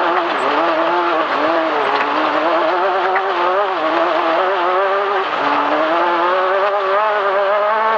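Off-road race car's engine running hard, its pitch rising and falling with the throttle over a steady rush of road and wind noise, heard from a camera mounted on the car's nose.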